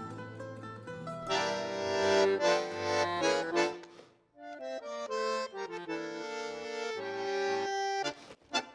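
Accordion music with a Celtic folk flavour: held chords under a melody. It breaks off briefly about four seconds in, then resumes, with short sharp plucked notes near the end.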